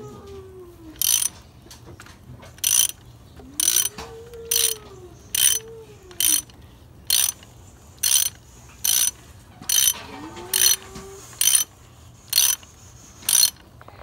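Ratchet clicking in short back-strokes, about once a second, as it turns a digital torque adapter to tighten a spark plug in a Ford Triton V10's aluminum cylinder head.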